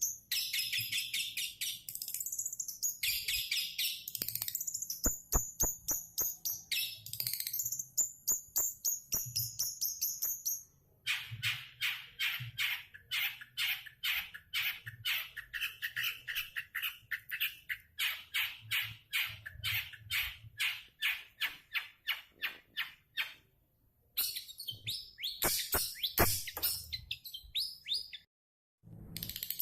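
Long-tailed shrike (cendet) singing: varied high chattering phrases, then a long run of rapid repeated notes at about three a second, then more chatter, with a brief break near the end.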